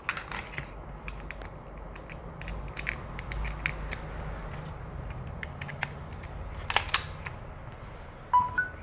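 Small plastic clicks of USB plugs and cables being handled and plugged into a car charger adapter, with a louder cluster of clicks about seven seconds in. Near the end comes a short electronic beep of two rising notes. A low steady hum runs underneath.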